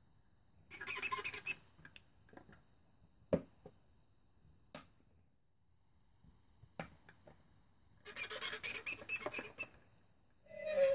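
A cup and straw being handled: two bursts of rapid squeaking, one about a second in and a longer one near the end, with a few single clicks between. A faint steady high hiss runs underneath.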